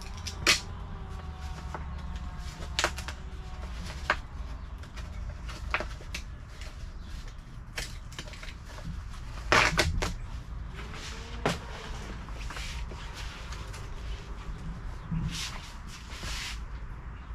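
Scattered sharp clinks and knocks of tools being handled against metal parts, the loudest cluster about ten seconds in, over a steady low hum.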